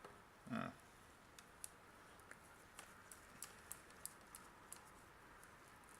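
Faint, irregular light clicks and taps, about a dozen over a few seconds, from small plastic objects being handled.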